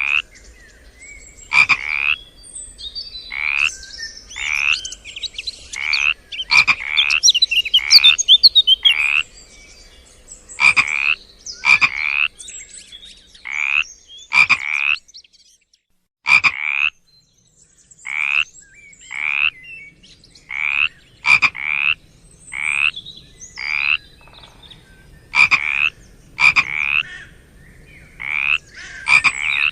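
Frogs calling: short croaks repeated roughly once a second, each with a slight rise in pitch, with a pause of about two seconds midway. Fainter, higher chirping calls mingle in during the first third.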